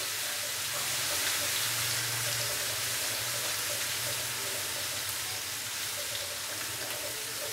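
Ginger-garlic paste sizzling steadily in hot oil in an aluminium karahi as it is stirred and lightly roasted.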